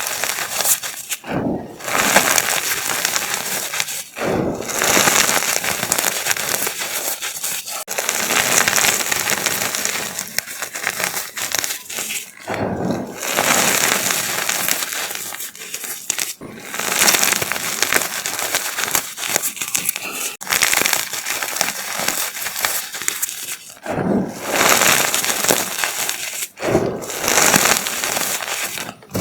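Giant chalk being crushed and crumbled, a dense crackling crunch that runs in long stretches with brief pauses between them.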